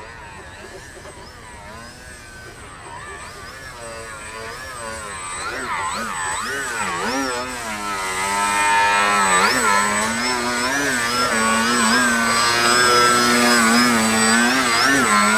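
Radio-controlled Yak 55M aerobatic model plane's motor and propeller. Its pitch swings up and down with the throttle as it flies low. It grows louder through the first half and stays loud from about eight seconds in, while the plane hangs nose-up close by.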